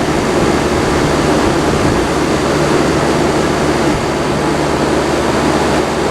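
Frigidaire window air conditioner running on cool with its compressor on and its fan blowing: a steady rush of air over a low hum, with no change.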